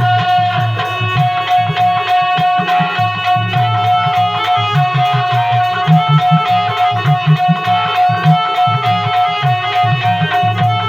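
Instrumental bhajan music: a dholki drum beating a rhythm under a keyboard organ that holds one steady note, with other melody notes above it.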